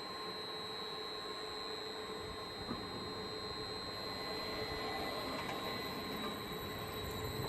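Electric multiple unit, a Stadler FLIRT, standing at a stop with its electrical equipment giving a steady whine of several high, constant tones, over a steady hiss of rain.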